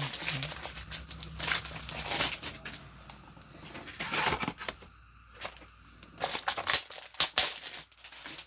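Plastic wrapping on a pack of top loaders crinkling and tearing as it is pulled open, in irregular handling strokes, busiest early on and again about seven seconds in.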